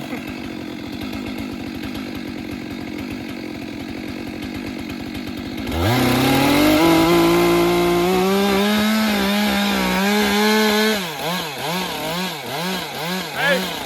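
Two-stroke chainsaw idling, then opened up about six seconds in, its engine note climbing fast and holding at high speed. Near the end the engine speed rises and falls about twice a second.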